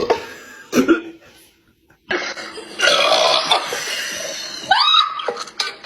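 A person burping: a short burp just under a second in, then one long, drawn-out burp lasting over two seconds, followed by a brief voice sound.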